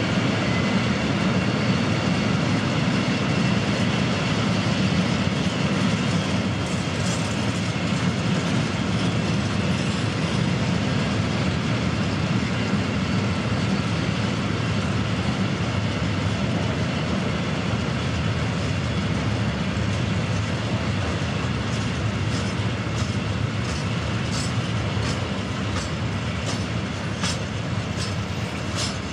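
Freight train of high-sided open wagons rolling past close by: a steady rumble of steel wheels on the rails. Near the end, a run of sharp clicks joins in as the wheels pass over the track.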